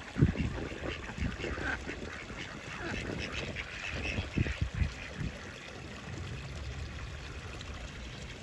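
Ducks quacking in short, scattered calls that thin out after about five seconds, over a low wind rumble on the microphone.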